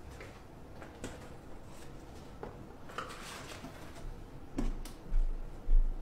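A few faint clicks and knocks in a quiet room, then, from about four and a half seconds in, a run of dull low thumps about half a second apart.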